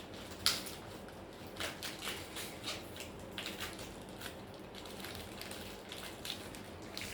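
Irregular small clicks and taps of hands handling tools and parts, with one sharp click about half a second in, over a low steady hum.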